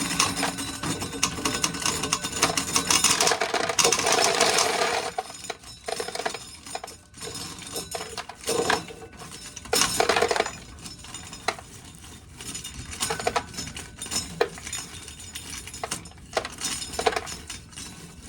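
Dried corn kernels being shelled off the cob and clinking into a container: a dense rattle for about the first five seconds, then scattered short rattles.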